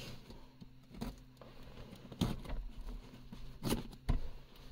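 Retractable box cutter scraping and slicing through packing tape on a small cardboard box, with a few sharp knocks and clicks of the knife against the box, the loudest about two and four seconds in.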